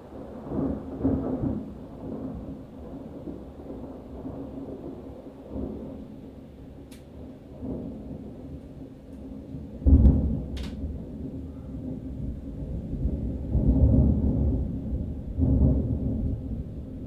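Thunder rolling in several waves of low rumble, with a sudden, loud crack about ten seconds in and more rumbling swells after it.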